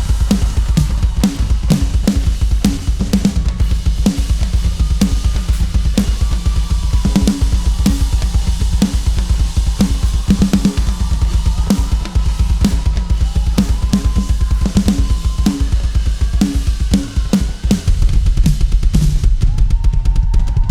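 Live worship band playing an instrumental passage: a full drum kit keeps a steady beat with kick drum, snare and cymbals over a heavy bass line, with sustained keyboard or guitar tones. The band drops back briefly and then comes in louder near the end.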